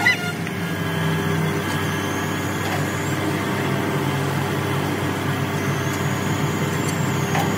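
An engine running steadily, a constant low hum.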